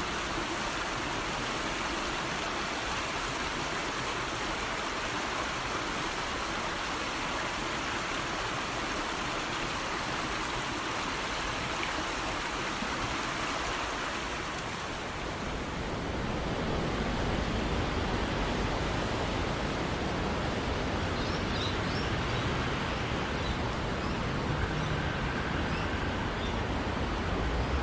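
Steady, even rushing noise of outdoor ambience. About sixteen seconds in, it changes to a duller, lower rumble.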